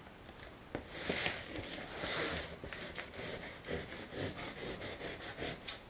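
A large knife blade cutting through the wrapping of a cardboard parcel: a quick run of short scraping, rasping strokes.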